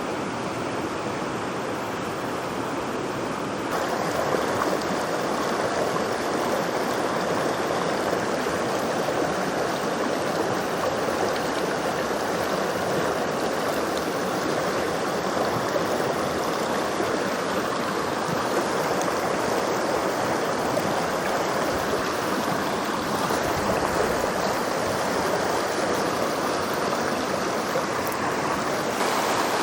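Mountain creek running: a steady wash of flowing water that gets louder about four seconds in.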